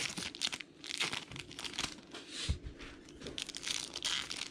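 Foil trading-card pack wrapper being crinkled and torn open by hand, with irregular crackles and rips, and a soft thump about halfway through.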